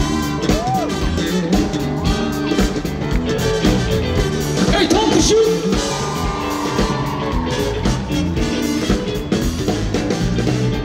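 Live rock band playing: a steady drum beat under electric guitar and bass, with a few sliding guitar or vocal notes.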